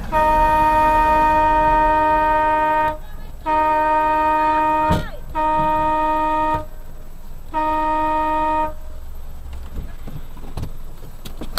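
Car horn sounding four times at one steady pitch: a long blast of about three seconds, then three shorter ones, warning a pedestrian standing in front of the car. A sharp knock comes between the second and third blasts.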